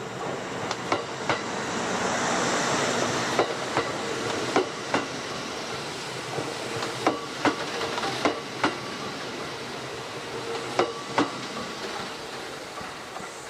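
Electric train rolling slowly through the station, its wheels clacking over rail joints in pairs a fraction of a second apart, over a steady hiss and hum; the hiss swells briefly about two seconds in.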